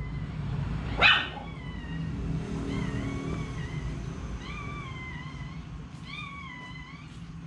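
Newborn chihuahua puppies crying: a string of short, high-pitched mewing cries, each rising and then dipping in pitch, with one sharper, louder cry about a second in.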